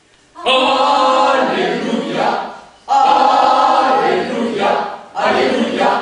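Voices singing together in chorus, starting about half a second in, in three long held phrases with short breaks between them.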